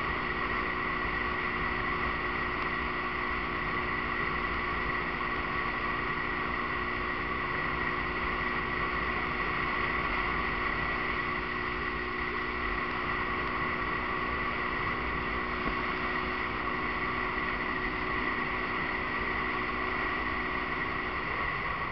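Cruiser motorcycle engine running at a steady road speed, heard from the rider's seat with wind noise on the microphone. The steady engine tone drops away near the end.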